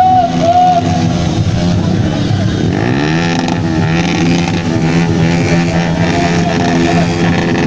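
Sport motorcycle engine running, then revving up about three seconds in and holding at high revs during a stunt.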